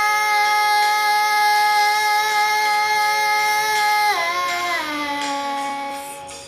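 A high singing voice holds one long note for about four seconds, then slides down in pitch and fades out.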